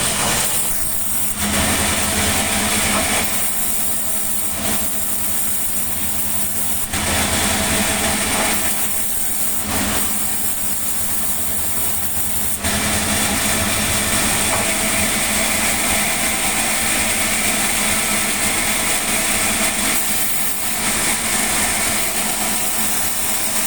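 Sawmill machinery running: a steady engine drone with a constant high whine. The sound changes character several times as the load shifts.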